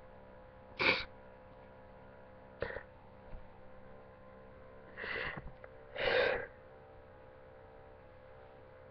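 A person crying: a sharp sniff about a second in, then a few shaky, sobbing breaths, the loudest two about five and six seconds in.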